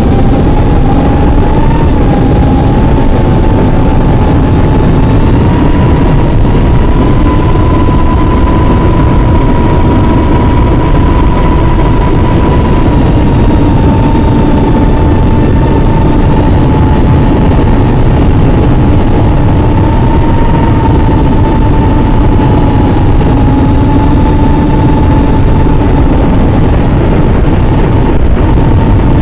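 Small FPV racing drone in flight as heard over its analog video link's audio: a steady whine that wavers slowly in pitch with throttle, over a loud, even rush of hiss and low rumble.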